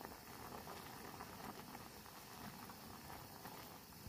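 Pot of instant ramyeon noodles boiling on a portable gas burner: a faint, steady bubbling and crackle of the broth.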